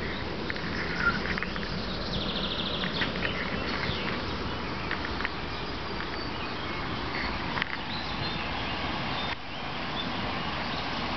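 Outdoor riverbank ambience: a steady rush of noise with faint bird chirps scattered through it and a short rapid trill about two seconds in.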